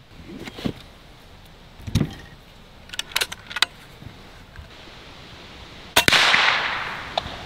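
A shot from a .22 PCP air rifle at a .22 Magnum cartridge held in a revolver cylinder: a sharp double crack about six seconds in, then a long fading tail. Before it come a few smaller knocks and clicks.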